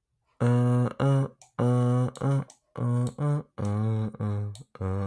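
A man's low voice humming a tune wordlessly in about nine short, separate notes, some of them wavering in pitch.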